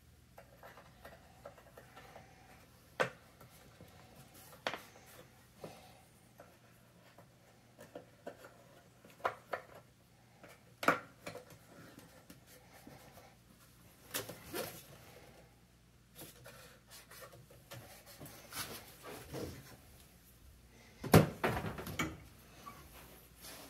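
Scattered clicks and knocks of the dryer's front bulkhead being handled and lifted off the cabinet, with the loudest clatter near the end as it comes away.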